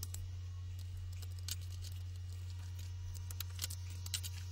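Steady low electrical mains hum with a few faint clicks.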